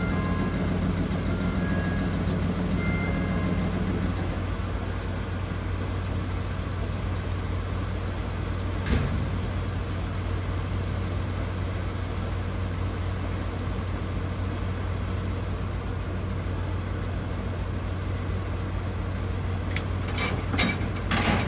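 DE10 diesel-hydraulic locomotive's diesel engine idling steadily. There is a single sharp knock about nine seconds in and a few sharp clanks and knocks near the end.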